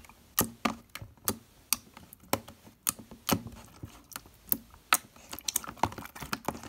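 Glossy jiggly water slime squeezed and pressed by hand in a plastic container, giving sharp, wet clicking pops about two a second that come faster near the end.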